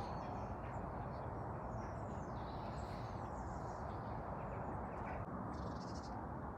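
Outdoor ambience: a steady low rush of background noise, with a few short bird chirps about two and a half seconds in and again near the end.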